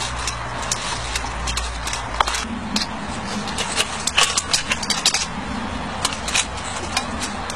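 Scattered light metallic clicks, rattles and scrapes from hands working at the cab fittings and firebox door of a miniature live-steam locomotive, over a steady background hiss; a low hum fades out about two and a half seconds in.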